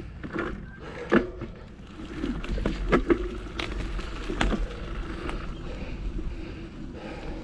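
Mountain bike rolling over a dirt singletrack trail, with wind rumbling on the camera's microphone and several sharp knocks and rattles from the bike as it hits bumps.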